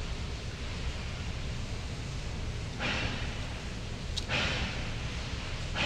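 Short breathy hisses, beginning about halfway in and coming roughly every second and a half, over a steady low rumble.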